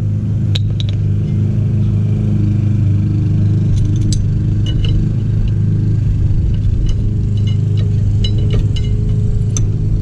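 Light metallic clinks and ticks of a combination wrench against the rear brake caliper bracket and bolts, scattered through the middle and later part. Under them runs a steady low machine hum, which is the loudest sound.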